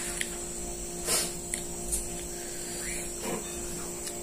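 Steady electrical hum in a small room, with a few brief soft noises from someone chewing and eating rice with their fingers.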